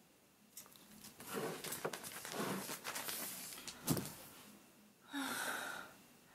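Plastic LEGO Technic model handled and rattling, with scattered clicks, then set down on a table with a single knock about four seconds in, followed by a short breathy exhale.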